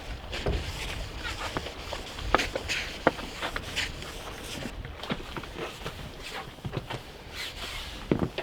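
Scattered, irregular knocks, clicks and thuds of footsteps and handling aboard a sailboat, over a low steady rumble.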